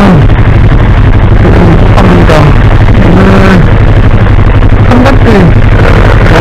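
Yamaha R3 motorcycle's parallel-twin engine, fitted with an Akrapovič slip-on muffler, idling steadily while stopped in traffic. A voice comes and goes over it.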